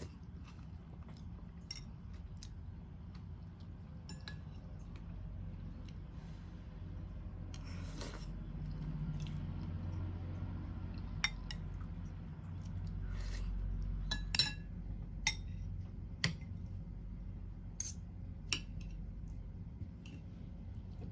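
Cutlery and dishes clinking: a scattering of short, sharp clicks and taps, most in the second half, over a low steady hum.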